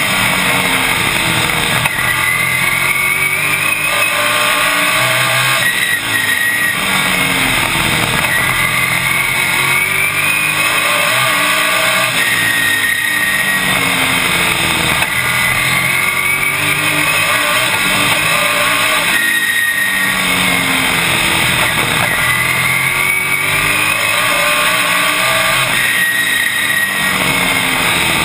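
Super Late Model race car's V8 engine heard from inside the cockpit at racing speed, its pitch rising under acceleration and dropping back when the driver lifts, over and over about every six or seven seconds as the car laps the oval.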